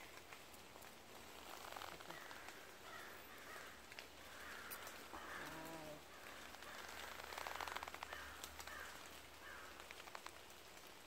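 Faint quiet woodland ambience with soft rustling of leaves and clothing, a crackling patch of rustle about seven to eight seconds in, and a few faint short calls.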